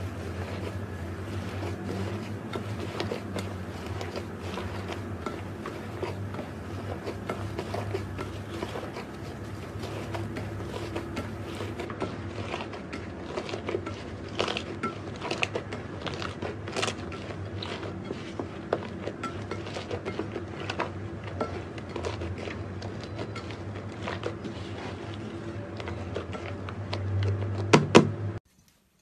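Hands kneading and squeezing fluffy slime: continuous squishy crackling with many small pops and clicks over a steady low hum. A louder burst of pops comes near the end, then the sound cuts off suddenly.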